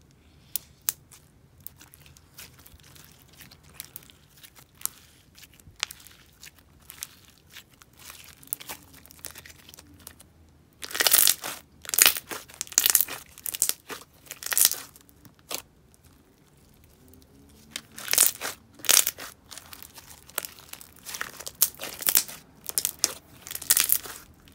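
Glossy blue clear slime with small jelly cubes being poked, squeezed and kneaded by hand, making clicky squelching sounds. For the first ten seconds there are only scattered faint clicks. From about eleven seconds in come two runs of rapid loud crackling clicks and squishes, the second starting near eighteen seconds.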